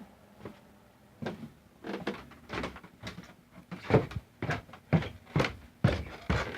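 Footsteps on a hard floor, about two a second, growing louder as they approach.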